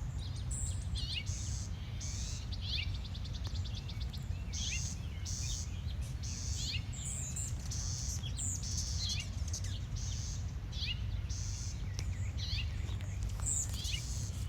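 Birds chirping: many short, high chirps that sweep downward, coming every second or so, over a steady low rumble.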